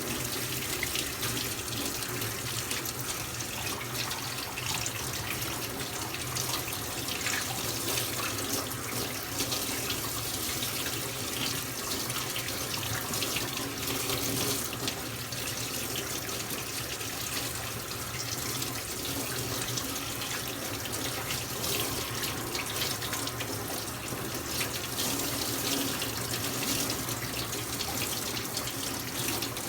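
Tap water running steadily into a sink, with small irregular splashes.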